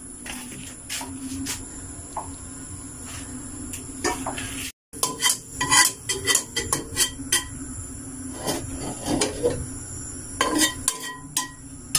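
A metal ladle knocking, clinking and scraping against a metal cooking pot as it is stirred, in many short, irregular knocks.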